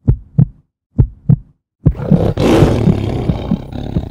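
Sound effects of an animated intro: low, heartbeat-like double thumps, about one pair a second, then about two seconds in a sudden loud rushing burst as the treasure chest opens, fading slowly.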